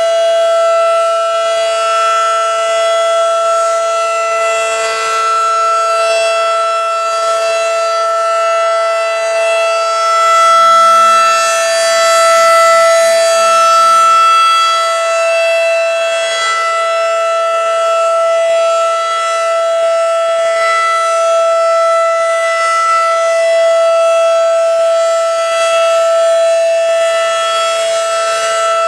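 Federal Signal civil defense siren sounding a steady alert tone. The pitch holds level, with a slight waver every two seconds or so.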